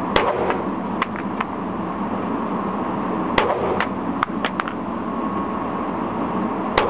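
Handgun fired three times in an indoor range, about three seconds between shots, each crack followed by a short echo, with fainter sharp cracks in between. A steady hiss of air noise runs underneath.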